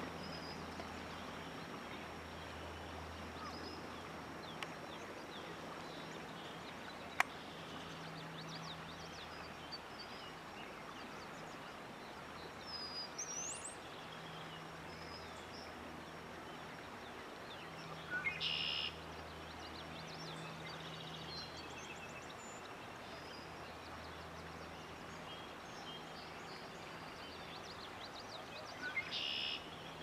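Outdoor ambience of faint steady hiss and an on-off low hum, with songbirds calling: a rising whistled note, then two buzzy calls of about a second each in the second half. A single sharp click about a quarter of the way in.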